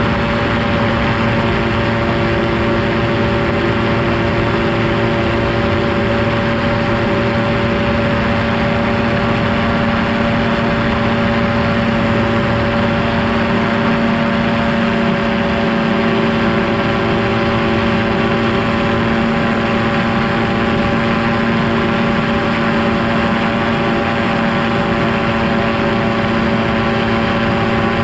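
Quicksilver MXL-2 ultralight's engine and propeller droning steadily at cruise, holding one even pitch, with a rush of air noise underneath.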